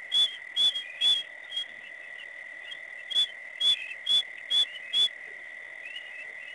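Short, high whistled calls repeat about twice a second in two runs, four and then five, over a steady high-pitched night chorus.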